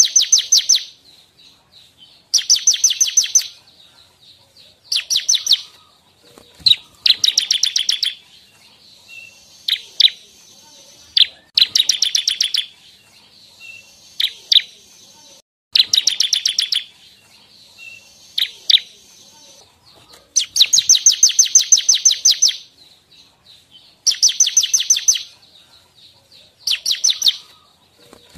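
Bar-winged prinia (ciblek) singing: loud, fast trills of rapidly repeated high notes, each lasting one to two seconds and recurring every few seconds, with a few short single chirps in between.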